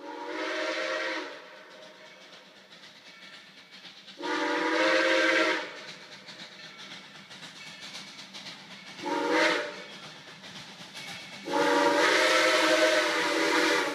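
Steam locomotive's whistle blowing the grade-crossing signal as the train approaches: long, long, short, long, each blast holding several tones at once.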